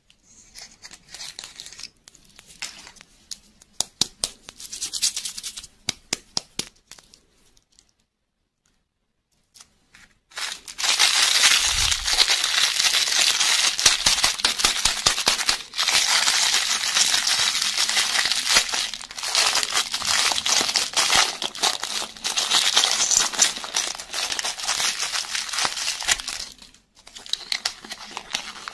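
Small clear plastic packet being crinkled and torn open by hand. The crinkling is loud and continuous for about sixteen seconds after a short silence. It is preceded by softer scattered clicks and rustles of handling, and tails off into quieter rustling near the end.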